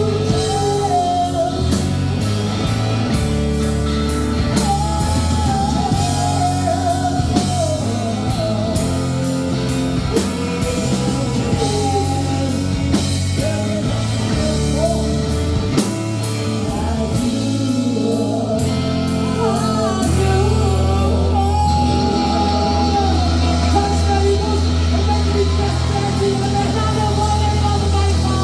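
Rock band playing a song with a singer: vocals over drums and guitar.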